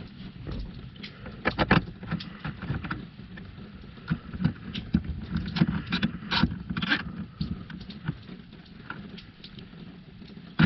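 Small plastic and metal parts handled by hand under a car's dashboard while a screw is fitted: scattered sharp clicks and taps with rustling, thickest about a second and a half in and again from about four and a half to seven seconds.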